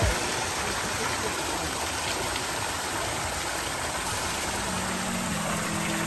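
Small waterfalls spilling off rocks into a fishing pond, a steady splashing rush of water. A steady low hum joins in about four and a half seconds in.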